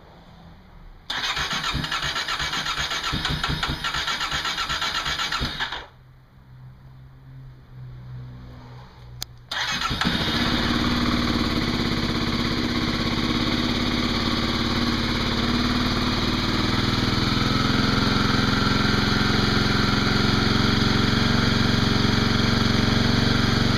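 Kawasaki KLX250SF single-cylinder engine being cold-started on the electric starter: about five seconds of cranking without catching, a pause, then a second try catches near the ten-second mark and the engine settles into a steady idle that gets slightly louder. The airbox snorkel is removed, opening up the intake note.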